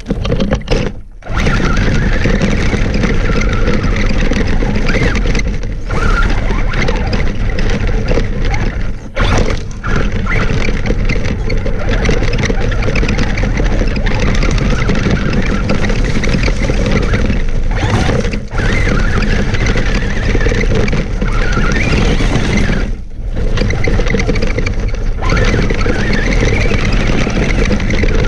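Traxxas Stampede RC monster truck heard from a camera mounted on it: the electric motor's whine rising and falling with speed over a constant crunch and rattle of tyres on gravel. It drops out briefly a few times.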